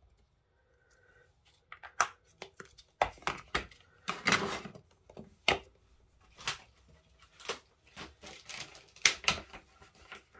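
Plastic ink pad cases being snapped shut, handled and set down on a craft mat: a run of irregular plastic clicks and clacks after a quiet first couple of seconds.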